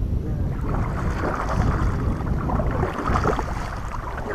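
Kayak paddle strokes splashing in the water about once a second, under a steady rumble of wind on the microphone.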